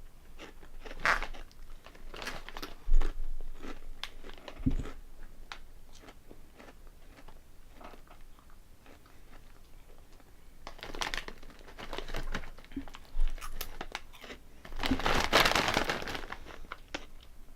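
Close-up crunching and chewing of Honey Tong Tong ribbed potato snacks. Sharp bites come about three seconds in, there is a quieter stretch in the middle, and a longer run of crunching follows near the end.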